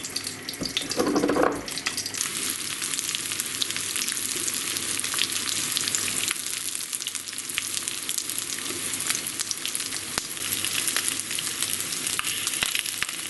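Semolina-coated rotan (Amur sleeper fish) frying in a pan, a steady sizzle with dense crackling of hot oil. A brief louder noise about a second in.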